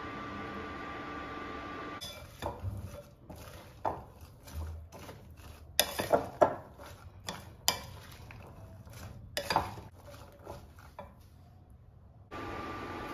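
A steady hum with a thin high tone, then, about two seconds in, a wooden spoon stirring boiled chickpeas and chopped vegetables in a ceramic bowl: scraping and irregular sharp knocks of the spoon against the bowl, loudest around the middle, before the hum returns near the end.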